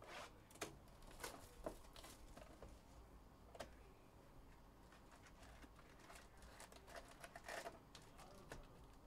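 Faint handling noise of a cardboard trading-card hobby box and its foil-wrapped packs as the packs are lifted out: scattered short crinkles and clicks, with a denser cluster of crinkling about seven and a half seconds in.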